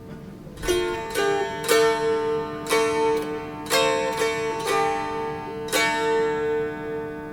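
Plucked string instrument playing a slow melody, a picked note every half second to a second starting just under a second in, each note ringing on over steady drone strings.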